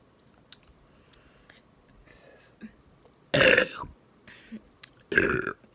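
A woman burping twice, close to the microphone: a loud burp about three seconds in, lasting about half a second, and a second, shorter one near the end, with faint mouth clicks before them.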